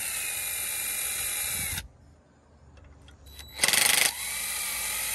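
Cordless power driver with a 10 mm socket backing out the vacuum pump's mounting bolts. It runs steadily with a faint wavering whine and stops about two seconds in. After a short pause it gives a brief louder burst and then runs steadily again.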